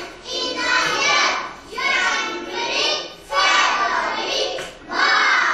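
Children's voices in phrases about a second long, with short gaps between them.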